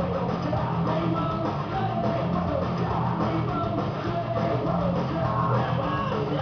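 Rock music with electric guitar, playing steadily as a backing soundtrack.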